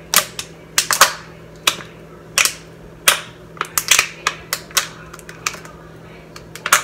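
A person drinking cold water from a glass in gulps: a string of irregular, sharp swallowing clicks, about two a second.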